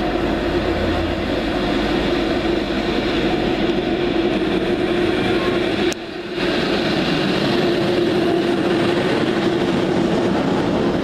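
Class 90 electric locomotive hauling Mk3 coaches rolling past close by: a steady rumble of wheels on rail with a constant hum. The sound drops briefly with a click about six seconds in, as the locomotive draws level.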